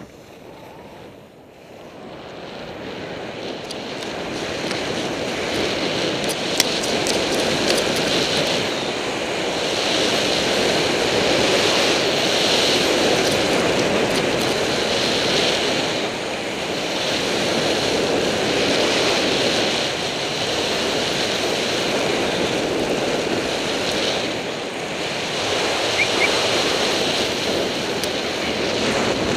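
Wind rushing over a helmet camera's microphone mixed with skis hissing and scraping on the snow during a fast downhill run. The rush builds over the first few seconds as speed picks up, then swells and eases every few seconds.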